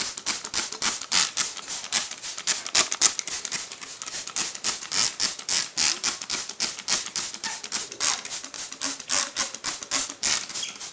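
Hand trigger spray bottle squirted rapidly and over and over, about four to five short hissing squirts a second, misting water onto a bathing pigeon.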